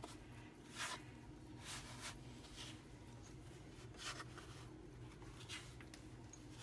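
Fingers pressing and turning fish fillets in dry breading in a plastic bowl: a few faint, soft, scratchy rustles at uneven intervals.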